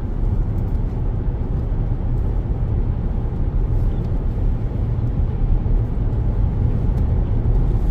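A car driving on the freeway: a steady low rumble of tyre and engine noise heard inside the cabin.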